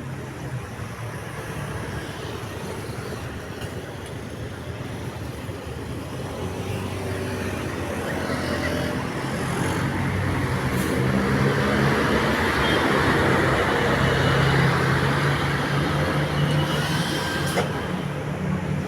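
Road traffic passing close by: a vehicle's engine hum and tyre noise grow louder from about the middle, peak, then ease off a little near the end.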